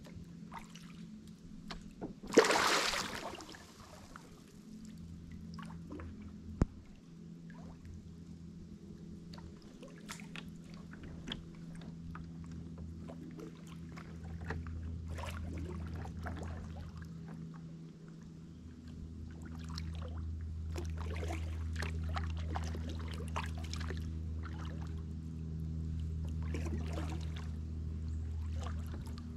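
Kayak paddling on a shallow river: the paddle blades dip and drip, with small splashes and light knocks throughout. A louder splash comes about two seconds in.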